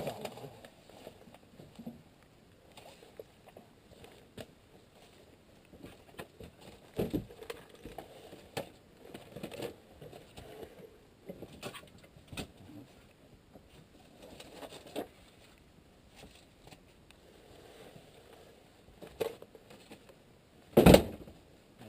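Scattered clicks, knocks and rustling of tools and small parts being handled, with a loud knock near the end.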